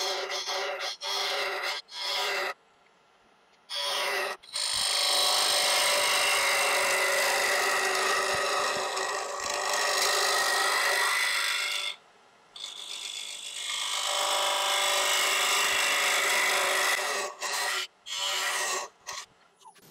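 Small carbide turning tool hollowing out the inside of a wooden box blank spinning on a lathe: a scraping cut. It comes in several short strokes at first, then long continuous cuts with a brief break about two-thirds of the way through, and short strokes again near the end.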